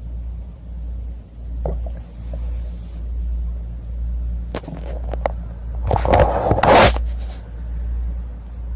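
Stomach rumbling and gurgling, a low rumble that swells and fades about once a second, with a few sharp clicks and a louder noisy burst about six seconds in.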